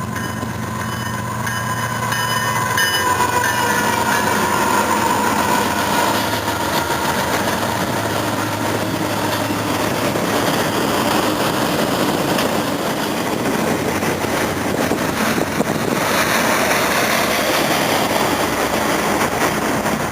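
A train rolling past, a steady rumble and rattle of wheels on rail, with a faint tone that sags slightly in pitch a few seconds in and a harsher hiss coming in near the end.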